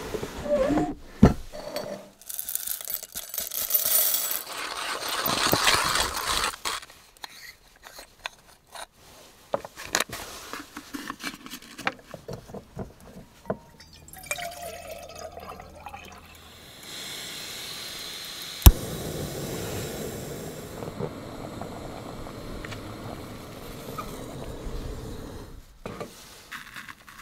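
Coffee gear being handled, with knocks and rustling. About halfway through, water is poured from a vacuum flask into a gooseneck kettle. After that a small gas canister stove burns with a steady hiss, broken by a single sharp click.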